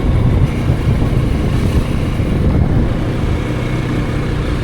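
Motor vehicle on the move: a steady engine drone mixed with road noise.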